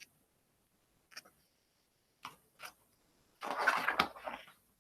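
A page of a picture book being turned: a few faint clicks of handling, then a brief rustle of paper a little over three seconds in.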